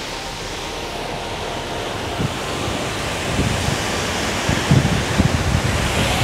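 Steady rush of a waterfall. Through the second half, wind buffets the microphone with low rumbles.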